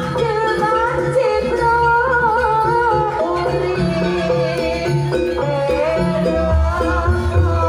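Live Javanese jaranan music: a gamelan-style ensemble of drums and gongs playing a steady rhythm, with a wavering high melody line over it.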